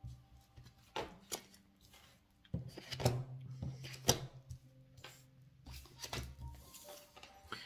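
A deck of tarot cards being shuffled and handled by hand: irregular soft slaps and rustles of the cards, a dozen or so scattered through.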